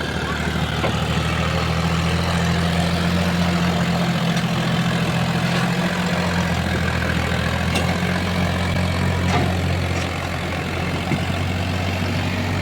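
Heavy diesel engine of a backhoe loader or tractor running steadily at low speed, its note shifting slightly about five seconds in.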